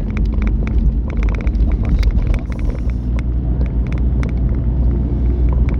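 Inside a moving car's cabin: a steady low rumble of the car driving, with scattered sharp ticks and clicks throughout.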